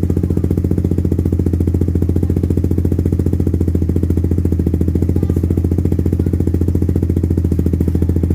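Suzuki Raider 150 Fi's single-cylinder engine idling steadily through a VMAX aftermarket exhaust, a loud, even stream of rapid exhaust pulses with no revving.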